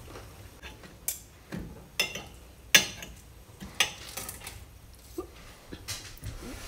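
Metal knife and fork clinking and scraping against a ceramic dinner plate while cutting crisp roast potatoes: a few sharp clinks a second or so apart, the loudest about three seconds in.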